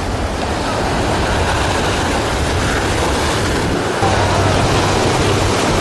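Steady jet roar of a C-17 Globemaster III's four turbofan engines during a low pass, with a low hum that grows louder about four seconds in.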